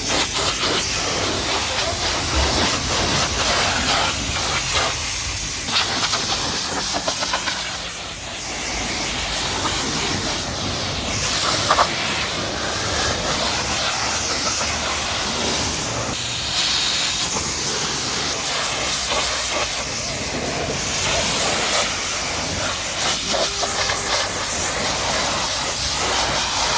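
High-pressure water spray hitting a car body: a steady, loud hiss with small rises and dips as the spray moves.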